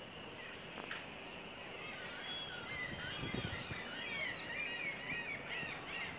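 Outdoor birds calling: from about two seconds in, many short, high chirping calls overlap and grow busier, over a steady background with a few low bumps about three seconds in.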